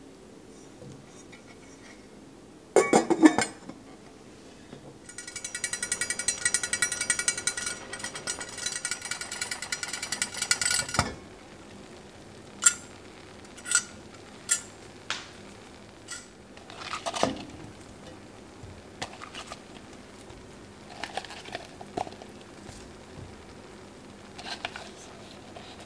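Cooking sounds around a stainless steel pot on a gas range: a loud clatter about three seconds in, then about six seconds of fast, even clicking that stops suddenly. After that come scattered sharp taps on the pot and soft knocks as broccoli florets are dropped in.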